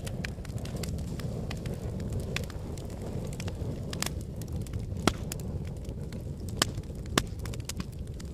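Wood fire burning with a steady low rumble and irregular sharp crackles and pops, three of them louder than the rest in the second half.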